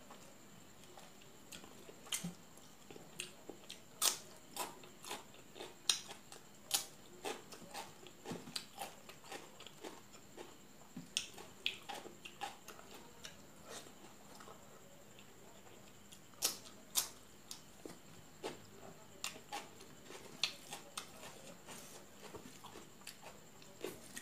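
Close-up mouth sounds of eating rice and fish curry by hand: chewing with irregular wet lip smacks and clicks, one or two a second, over a faint steady high-pitched whine.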